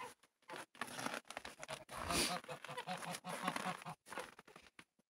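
Domestic geese coming up to the shed door over snow: soft crunching steps and short, low repeated calls.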